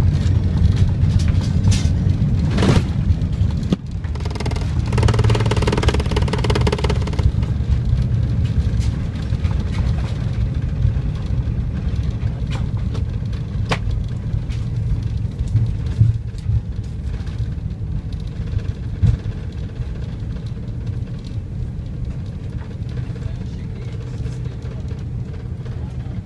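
Cabin noise of an Airbus A330-300 rolling out after landing: a heavy, steady low rumble from the runway and engines. A burst of louder rushing noise comes about five seconds in, then the rumble slowly grows quieter as the airliner slows.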